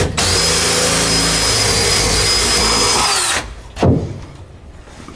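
Cordless drill running at a steady speed into the window frame for about three seconds, then stopping; a single knock follows about half a second later.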